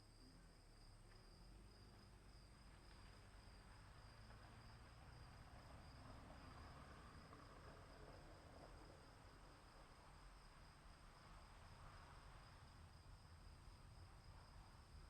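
Faint storm ambience: a steady high insect drone over a constant low rumble, with a soft swell of rushing noise about halfway through and again near the end.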